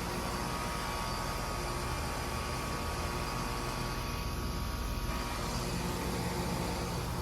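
Air conditioner or heat pump condensing unit running steadily in cooling mode: a low hum with an even whir of fan air.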